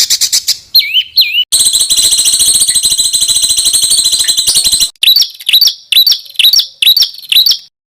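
Recorded songbird song: quick high chips and a short slurred whistle, then a fast, even, buzzy trill lasting about three seconds, then a run of sharp repeated chirps that cuts off abruptly near the end.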